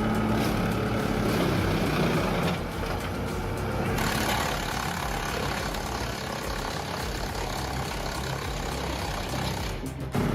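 Bandit Model 250 XP wood chipper running and chipping branches and logs, a dense steady machine din over its engine's hum; the sound turns hissier about four seconds in.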